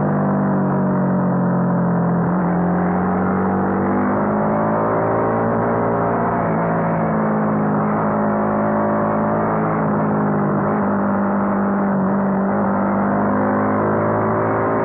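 Honda CBR250R's single-cylinder engine running hard at mid-to-high revs, its pitch rising and falling gently as the throttle is worked through the corners.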